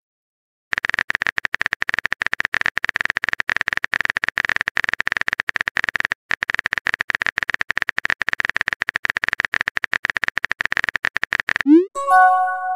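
Phone keyboard typing sound effect: a fast, steady run of small clicks lasting about eleven seconds, with a brief break midway. Near the end it stops, and a short rising swoop followed by a bright multi-note chime plays: the message-sent alert.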